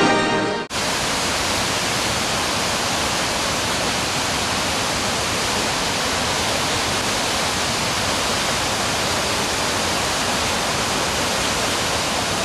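A piece of music cuts off abruptly under a second in, giving way to the steady rush of a mountain stream cascading over boulders.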